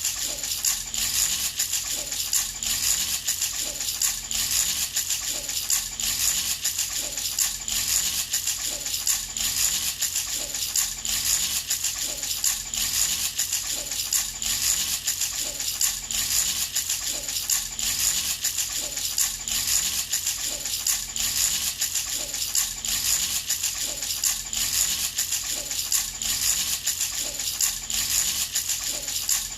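Baby rattle shaken over and over in a steady, even rhythm. It makes a bright rattle with a high ringing note held throughout.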